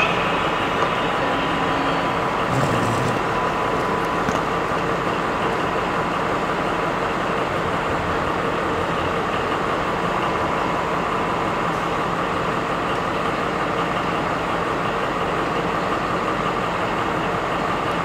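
The MTU 4000 diesel engine of a DB class 218 diesel-hydraulic locomotive, running steadily with the locomotive at standstill. A thin, steady whine sits above the engine sound.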